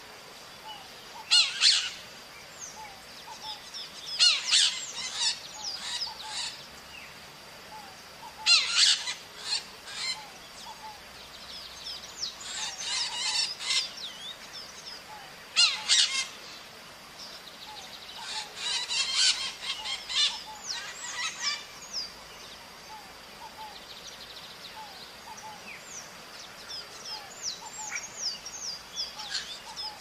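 A flock of maritacas (small Brazilian parrots) calling: harsh screeching bursts from several birds every few seconds, with softer scattered chirps in between.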